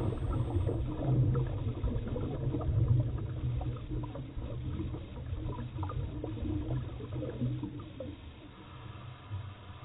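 Muffled underwater sound of a scuba dive picked up inside a camera housing: a steady low rumble with scattered crackles and gurgling bubbles, growing fainter towards the end.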